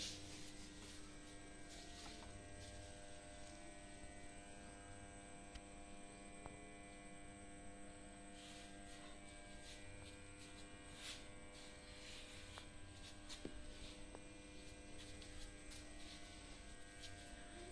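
Faint, steady electrical hum made of several held tones, with a few soft clicks; close to silence.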